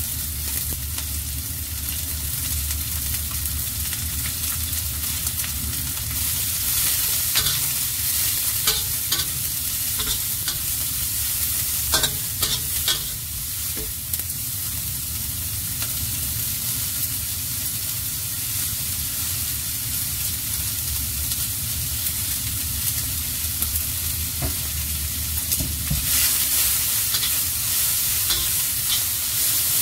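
Shredded cabbage, carrot and other vegetables sizzling in hot oil in a stainless steel wok, being stir-fried with a metal spatula that now and then scrapes and clicks against the pan.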